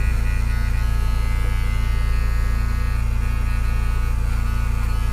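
Electric dog-grooming clippers running with a steady low hum, trimming hair from around the pad of a dog's back paw.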